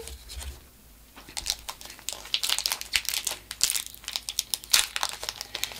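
Foil wrapper of a Pokémon booster pack crinkling as it is opened: many quick crackles that begin about a second in.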